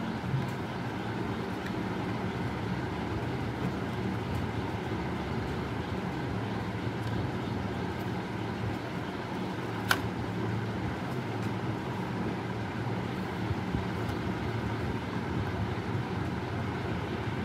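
Steady low mechanical hum, with a single sharp click about ten seconds in.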